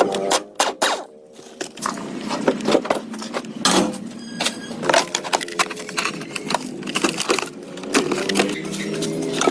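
A series of irregular sharp knocks and clatters, some close together and some spaced out.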